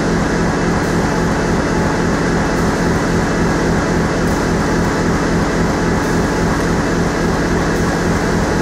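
Corrugated box production line running, with the automatic prefeeder conveyor feeding board into the flexo folder gluer: a steady machine noise with a constant low hum.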